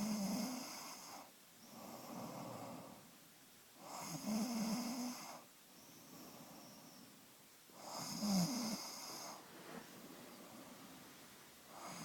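Snoring in a steady rhythm: a loud snore about every four seconds, each followed by a softer breath out.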